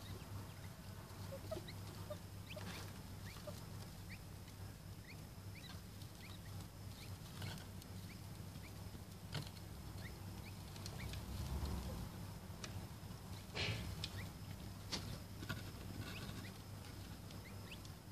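Chukar partridge chicks peeping, many short rising cheeps scattered throughout, with a few sharp rustles or taps in the straw, the loudest about thirteen and a half seconds in, over a steady low hum.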